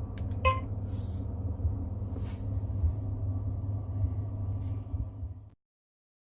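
Steady low rumble, typical of a vehicle cabin, with a few faint rustles and a short high beep about half a second in. The sound cuts off abruptly about five and a half seconds in.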